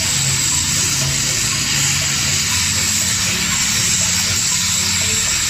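LPG gas welding torch hissing steadily as its flame heats aluminium for welding, with a low hum underneath.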